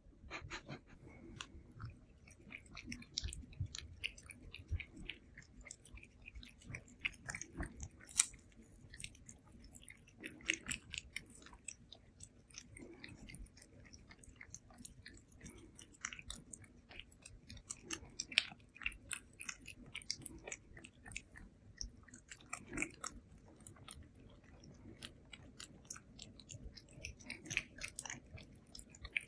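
Ragdoll cats licking and smacking at a paste treat squeezed from a tube: quick, irregular wet clicks of tongues and mouths, fairly faint.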